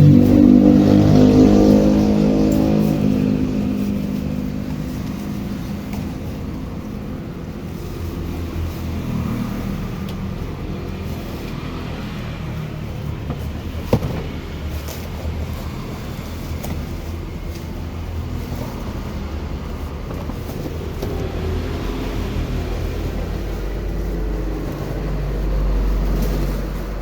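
A vehicle engine winding down from a rev in the first few seconds, then running steadily with a low rumble. There is a single sharp click about halfway through.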